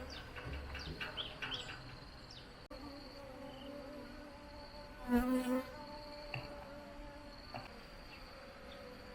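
Bees buzzing with a steady hum, and one bee flying close past about five seconds in with a brief, louder pitched buzz.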